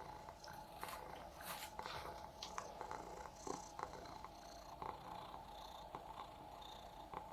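Domestic cat purring steadily and faintly, with a scatter of small clicks over the purr.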